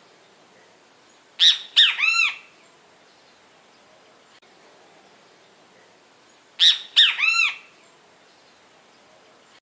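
Great kiskadee (bem-te-vi) giving its three-note 'bem-te-vi' call twice, about five seconds apart, the third note longer and arched in pitch.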